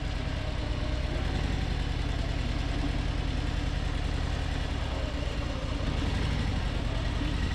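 Harley-Davidson V-twin motorcycle engine running steadily, with no revving.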